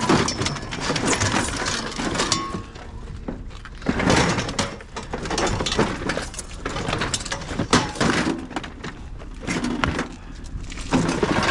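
Scrap being loaded onto a heaped trailer: a red steel hand-truck frame and other metal junk clanking, rattling and knocking against the pile. The clatter comes in several clusters of knocks.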